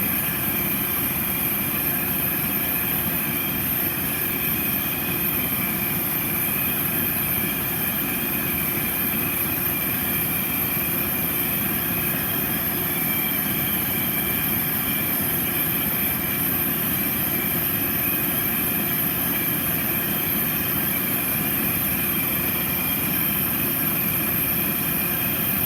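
Soldering torch flame running with a steady roar and hiss, heating sterling silver pieces until the silver solder between them melts.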